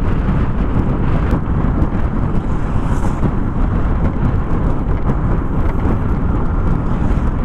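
Steady wind rush and road noise from a Yamaha NMAX scooter riding at about 50–60 km/h, its engine running under light throttle.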